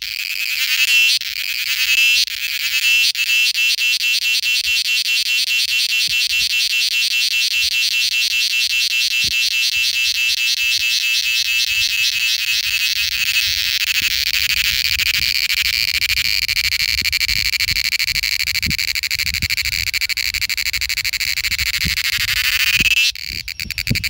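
Male cicada singing its mating call: a loud, shrill, rapidly pulsing buzz. It starts as short phrases about once a second, merges into one steady call, and breaks up about a second before the end.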